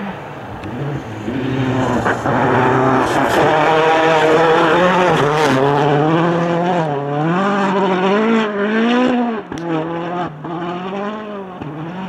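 Rally car engine revving hard as it comes past and pulls away, pitch rising and falling again and again with gear changes and lifts for the corners. Two sharp cracks near the end.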